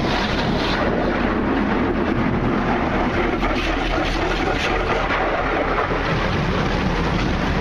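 Touch-free automatic car wash gantry (Water Wizard 2.0) spraying the car during its coloured-wax stage: a steady, loud rush of spray hitting the body, heard from inside the car.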